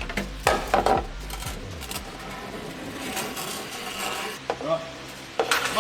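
Metal-on-metal workshop handling as the fuel tank guard under the vehicle is unbolted: a few short clinks and knocks, then scraping and rubbing of the metal guard and tools, with a brief louder burst near the end.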